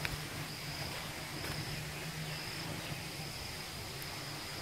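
Insects trilling in a steady high-pitched tone with short breaks, over an even outdoor hiss and a low steady hum.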